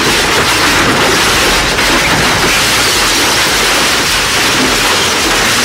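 Industrial shredder tearing apart a piano: a loud, continuous crunching and grinding noise of wood and keys being broken up.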